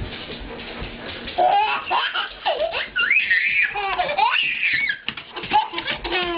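Baby laughing in repeated high-pitched squealing bursts, starting about a second and a half in.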